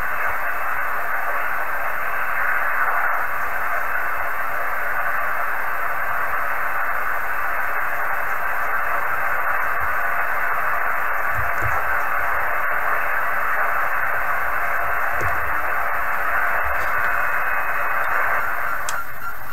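Kenwood TS-430S HF transceiver giving a steady static hiss from its speaker while being tuned across the 40-metre band in upper sideband, with no stations to be heard.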